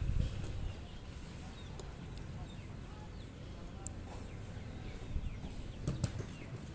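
Open-air ambience around a futsal pitch: a low rumble and thump at the start, short high chirps from birds, and one sharp knock about six seconds in as a futsal ball is kicked.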